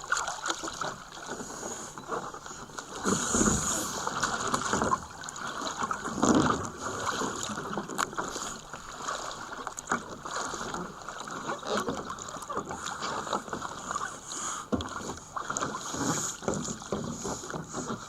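Water splashing and sloshing against a sea kayak as a swimmer hauls himself along its back deck to climb aboard, with louder splashes about three and six seconds in.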